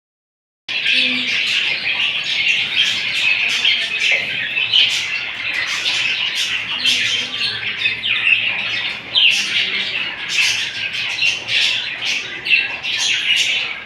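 A flock of budgerigars chattering, with a dense, continuous mix of warbles, chirps and squawks.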